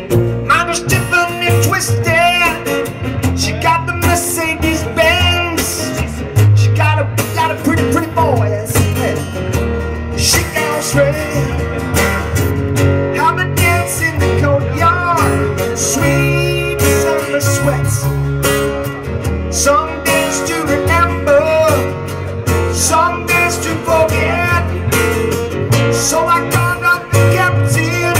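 Band music: guitars, bass and drums playing steadily, with a sung melody over them.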